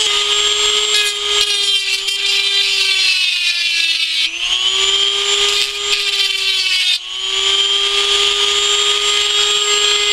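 Dremel rotary tool running at about half speed with a grinding stone, squaring up the end of a metal wind chime tube. A steady motor whine sits under a grinding hiss. The pitch sags for a couple of seconds around the middle as the stone bears on the tube, and dips again briefly a few seconds later.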